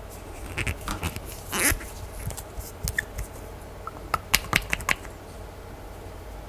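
Small glass nail polish bottle being handled and its plastic cap unscrewed: scattered small clicks and a scrape, then a quick run of sharp clicks about four seconds in as the cap twists off the threads.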